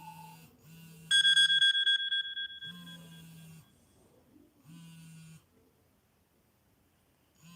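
Electronic phone ringtone for an incoming call: a loud, bright beeping tone starts about a second in and holds for about a second and a half, followed by shorter, fainter electronic bursts.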